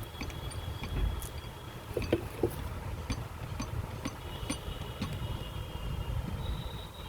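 A low steady rumble with scattered light clicks and knocks, a few stronger ones about two seconds in, as a hand crimping tool is worked on a diamond-wire connector sleeve.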